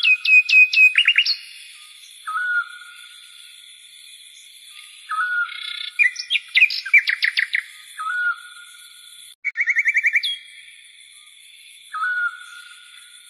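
Birds singing: a short whistled phrase repeats every couple of seconds, between bursts of quick, rapidly repeated notes, over a steady high background hum.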